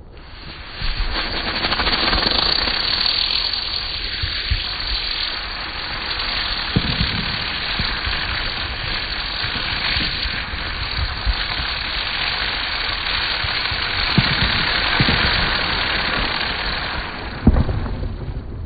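Ground fountain firework spraying sparks with a loud, steady hiss for about sixteen seconds, with a few low pops underneath. The hiss fades near the end, and a sharp crack follows.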